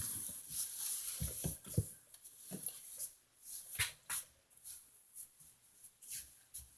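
Kittens moving about in a cat house: a rustling scuffle of scratches, taps and soft thumps, with a few heavier thumps about a second and a half in.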